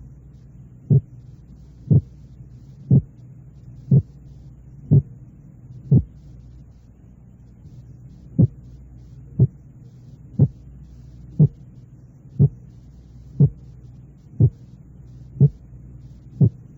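Paired short training sounds simulating a split heart sound, one pair about every second, over a steady low hum. In the first pairs the two sounds are 4 hundredths of a second apart; after a pause of about two seconds they come 2 hundredths of a second apart, about the closest they can be and still be heard as two.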